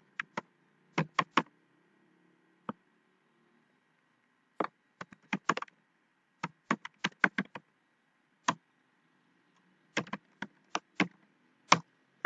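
Typing on a computer keyboard: single sharp keystrokes in short irregular bursts with pauses between them.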